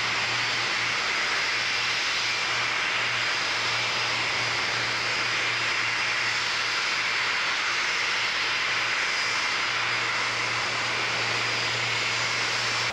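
Lockheed L-1011 TriStar's Rolls-Royce RB211 turbofan engines running as the airliner taxies past. The sound is a steady jet rush with a high whine.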